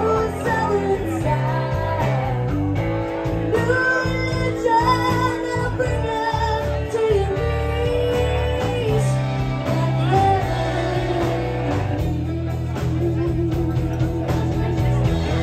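Live band playing a bluesy rock song, with electric guitar, bass, drums and a singer over them.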